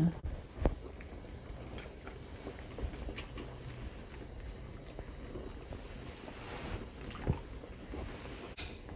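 Hot pot broth simmering in a divided stainless-steel pot while a wooden ladle scoops broth and pours it into a bowl. A few light clicks of utensils against the pot.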